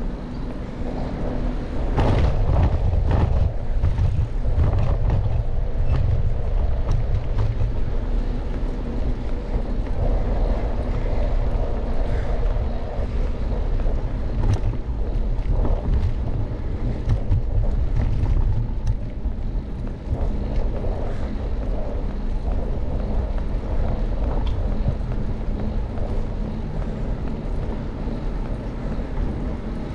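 Wind buffeting the microphone of a camera riding along on a moving bicycle, as a steady low rumble with scattered clicks and rattles. It grows louder about two seconds in and eases off again a little before the midpoint of the second half.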